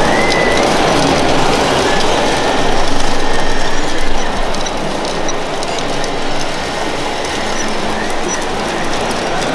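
Gravel pouring from a loading hopper into the tipper body of a radio-controlled model MAN dump truck: a dense, continuous clatter of small stones, loudest about three to four seconds in and a little quieter after that.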